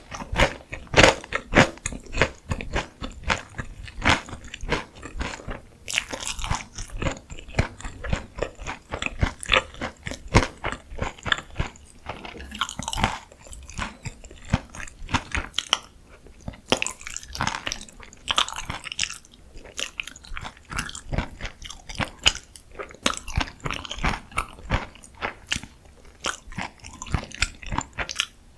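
Close-miked crunching and chewing of crisp deep-fried food, a dense crackle of bites and chews with louder crunches every second or so.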